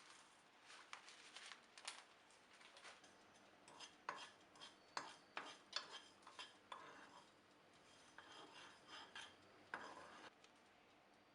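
Quiet kitchen handling: scattered light clinks, taps and scrapes of utensils against dishes or a pot, busiest around the middle and again near the end.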